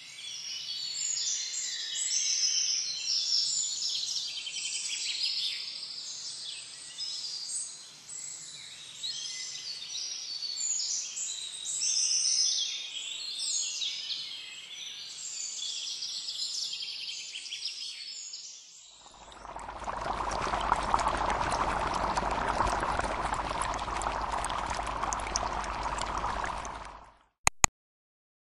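Dense, high-pitched chirping like a chorus of birds or insects over a faint hiss. About two-thirds of the way through it gives way to a louder, steady rushing noise that cuts off abruptly near the end, followed by two quick sharp clicks.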